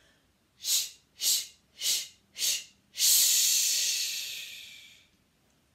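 A woman's deep breathing exercise for a singing warm-up. Four short, sharp breaths come about half a second apart, then one long hissing breath that fades out over about two seconds.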